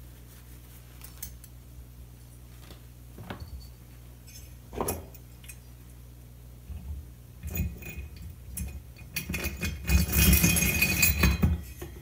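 Metal parts clinking and rattling as the finned cylinder head of an 80cc two-stroke engine is handled and set down onto the cylinder. The clatter is busiest and loudest in the last few seconds; before that there is only a faint low hum and a few light clicks.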